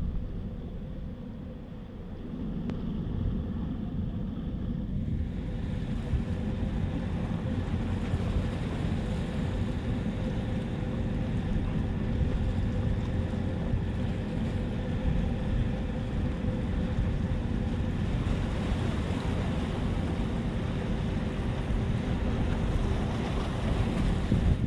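Wind buffeting the microphone over waves washing against breakwater rocks, with a steady low hum joining in about five seconds in.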